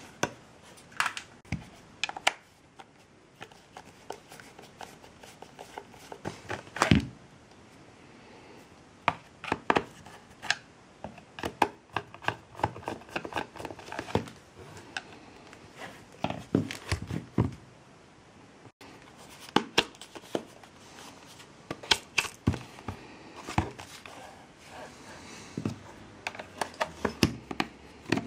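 Irregular clicks, taps and knocks of small hard objects being handled and set down, with a few louder sharp clicks and quieter pauses between.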